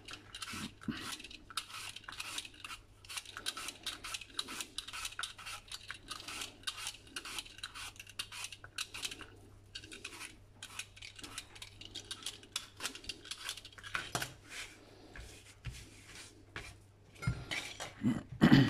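Apple being peeled with a Y-peeler: quick scraping strokes, several a second, as the blade shaves off the skin. Near the end a knife cuts into the peeled apple and knocks on the cutting board, louder than the peeling.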